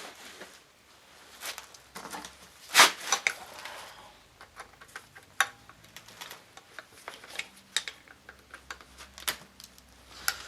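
Scattered metallic clinks and taps of hand tools and small engine parts during a scooter engine teardown, with one louder knock about three seconds in.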